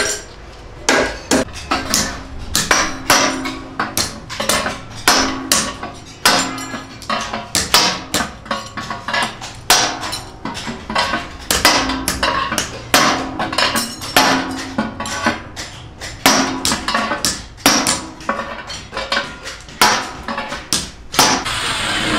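Hand hammer striking a punch against the steel body of a metal gas tandoor, uneven blows about two a second, each with a short metallic ring. Near the end a power tool starts running.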